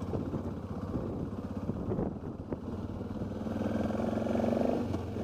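Motorcycle engine running while riding a rough gravel road, with scattered knocks and rattles from the bike over the surface. The engine gets louder and pulls harder from a little past halfway, then eases off near the end.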